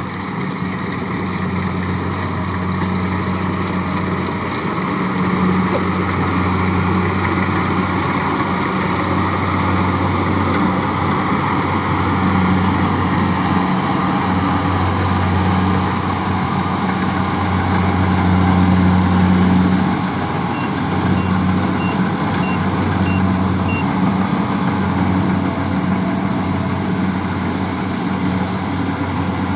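The engine of a heavy rice-harvesting machine running steadily under load, with its low drone swelling and easing a little. About two-thirds of the way in, a warning beeper sounds about six short high beeps, roughly two a second.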